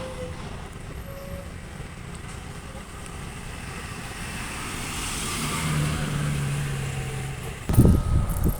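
Motor vehicle engines running at a steady low rumble, with a low hum rising briefly toward the end. Wind buffets the microphone in loud gusts near the end.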